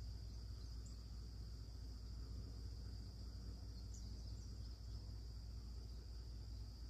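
Faint, steady chorus of field insects trilling on one high pitch without a break, over a low rumble. A few brief faint chirps sound above it, one about a second in and a couple around four seconds in.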